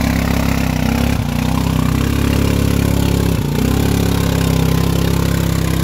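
ATV engine running hard at full throttle under heavy load as the quad pushes through a deep muddy puddle. The revs dip briefly twice, about a second in and again around the middle, then pick back up.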